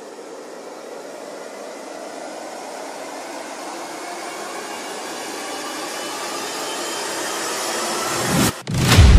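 A steady rushing noise that swells slowly louder for about eight seconds, breaks off, and is followed by a loud hit just before the end, like an edited intro's riser sound effect leading into a hit.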